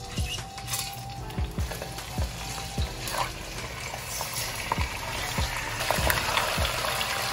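Chicken thighs sizzling and crackling as they are laid skin side down into hot oil in a Dutch oven. The sizzle grows louder about six seconds in as more pieces go into the pot.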